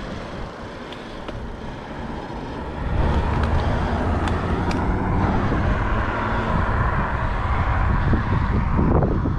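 Wind buffeting a helmet-mounted camera's microphone while cycling, a low rumble that gets louder about three seconds in, with a few sharp clicks.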